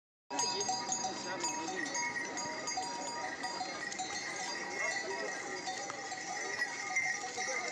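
Busy outdoor ambience of many overlapping voices with bells ringing steadily. It begins abruptly just after the start.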